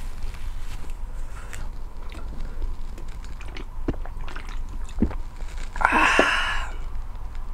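Person eating spicy instant noodles: wet chewing with small mouth clicks. About six seconds in comes one loud sucking slurp, under a second long.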